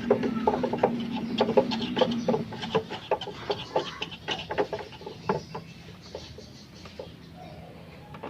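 Irregular light clicks and taps of screws and parts being handled and fitted while a window-type aircon is reassembled, thick for about five seconds and then thinning out.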